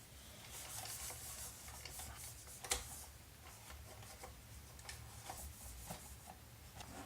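Dust cloth wiping over the body of a remote-control toy car: a faint, uneven swishing, with small clicks and one sharper click nearly three seconds in.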